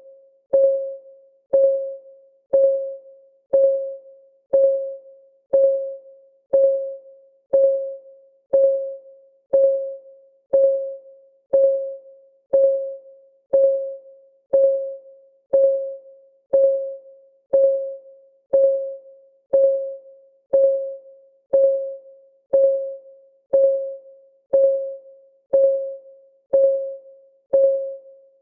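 Clock-ticking sound of a countdown timer: a short, pitched tick about once a second, each one ringing briefly and fading, in a steady even rhythm.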